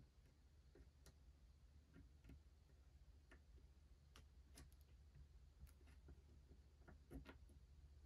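Near silence, with faint, irregular clicks of multimeter probe tips tapping on a circuit board's components over a low steady hum.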